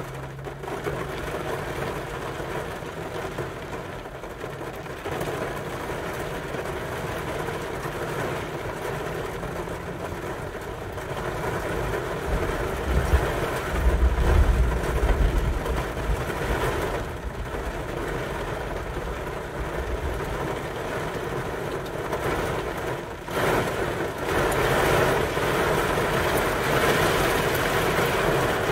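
Rain falling on a car's windshield and roof during a severe thunderstorm, heard from inside the car, growing heavier near the end. A low rumble swells and fades about halfway through.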